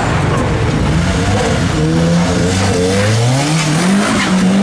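Mk3 Ford Fiesta's engine revving hard as the car accelerates away, its pitch climbing steadily over a couple of seconds.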